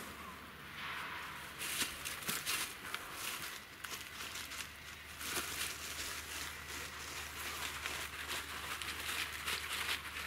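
Dry fallen leaves crunching and rustling as a person shifts his feet and crouches on them, in irregular crackly bursts.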